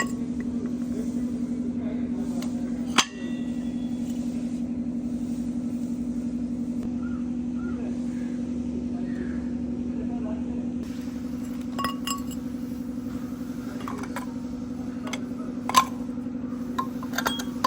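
Noise from a vehicle's rear wheel: a steady low hum with a fast, even pulse, broken by scattered metallic clicks and clinks, one sharp click about three seconds in.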